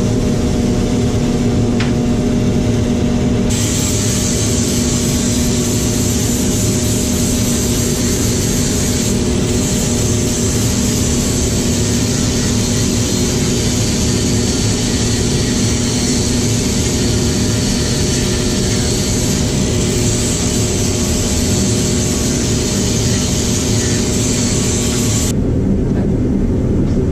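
Craftsman wood lathe running with a steady motor hum while a wooden handle blank is turned. A steady hiss of the work against the spinning wood starts about three seconds in and stops suddenly near the end.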